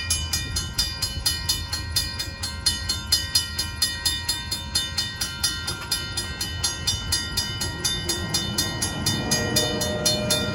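Amtrak passenger train rolling past a grade crossing with a low rumble and some clickety-clack of the wheels, while the crossing-signal bell rings in a fast, steady series of strikes, about four a second.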